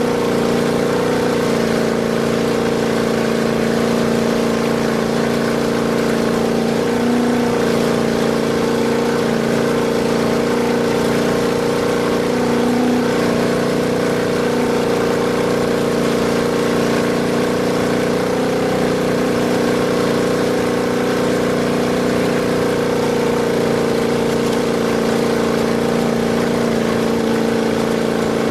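Off-road race vehicle's engine running at a steady high speed: a continuous, even drone with no gear changes or pauses.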